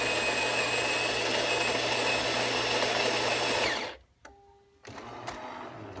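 Jura ENA Micro 1 espresso machine's built-in grinder grinding coffee beans for a two-shot espresso, a steady whirring grind that cuts off suddenly about four seconds in. A few quieter clicks and a faint mechanical whir follow.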